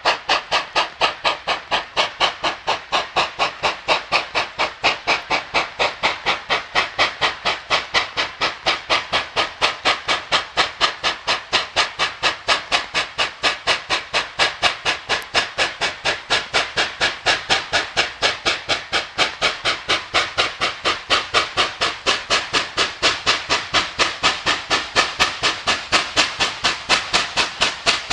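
Steam locomotive working under steam, its exhaust chuffing in a sharp, even rhythm of about four beats a second.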